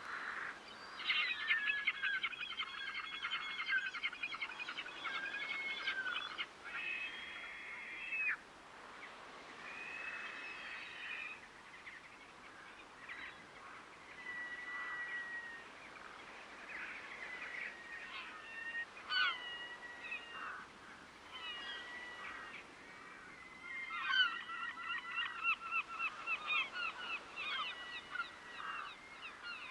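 Water birds calling over the river in fast runs of harsh repeated notes, loudest for the first few seconds and again in the last few seconds, with scattered single calls in between.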